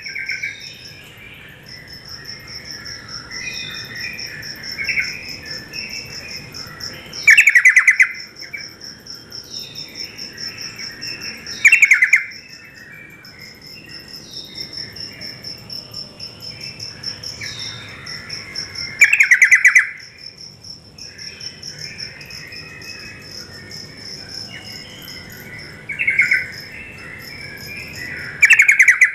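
Yellow-vented bulbul (trucuk) song: five short, loud, bubbling phrases a few seconds apart, with softer chattering between them, over a steady high-pitched insect chirring.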